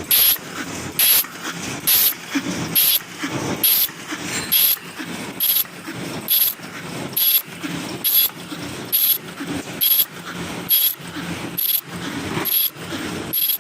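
Paper cup making machine running, its cycle repeating a little faster than once a second: each cycle a short, sharp, high hiss over a steady mechanical rattle.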